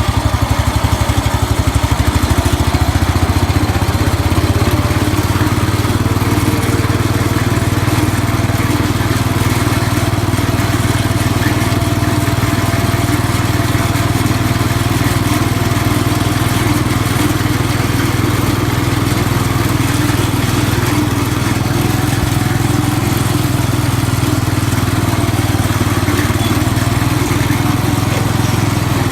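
1969 Cub Cadet 104 garden tractor's single-cylinder Kohler engine running steadily while the tractor is driven.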